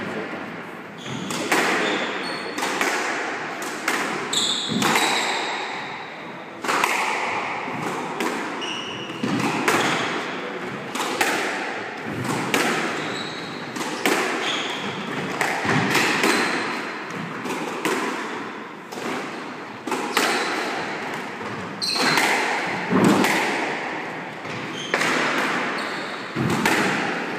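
Squash ball being struck by rackets and hitting the walls during a rally: sharp, echoing cracks about every second, with short shoe squeaks on the wooden court floor.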